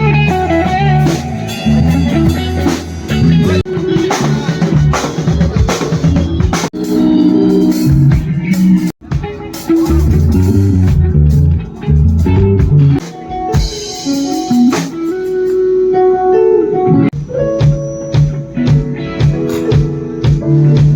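Live band playing during a sound check: guitar over a drum kit with other instruments, stopping for a moment about nine seconds in.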